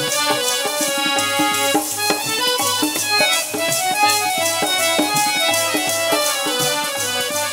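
Instrumental interlude of a Sikh devotional song: a harmonium plays the melody over a steady dholak beat, with jingling metal hand percussion keeping time.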